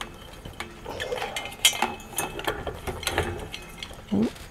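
Irregular small clicks and rattles of metal fan parts as a ceiling fan's hanger is worked up into its mounting bracket.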